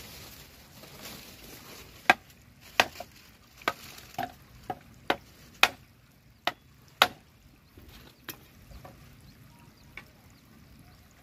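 Dry firewood being broken up for kindling: about a dozen sharp, irregularly spaced wooden cracks and knocks, coming thick and fast from about two seconds in, then a few spaced-out ones near the end.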